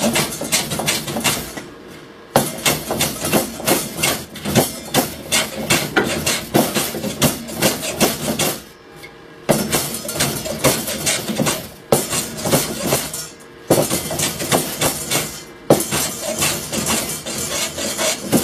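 Hand plane cutting shavings from a wooden bar held in a vise, in quick repeated short strokes, with a few brief pauses between runs.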